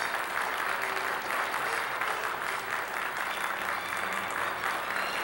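Theatre audience applauding steadily for the cast's curtain-call bows.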